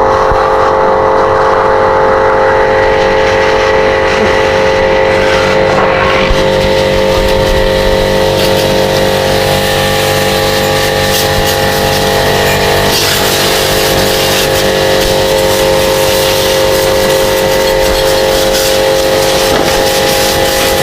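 Electric high-pressure washer running steadily, its pump motor humming under the hiss of a water jet.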